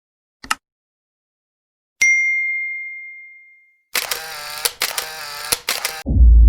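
Sound effects for a subscribe button animation. A short mouse-style click comes first, then a single bright notification ding that rings out and fades over about a second and a half. About four seconds in comes a busier two-second effect of rapid clicks with wobbling tones, and a loud low rumbling sound starts just before the end.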